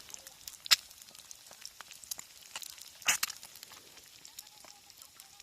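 Wood fire crackling and popping irregularly, with one sharp pop under a second in and a burst of louder crackles about three seconds in.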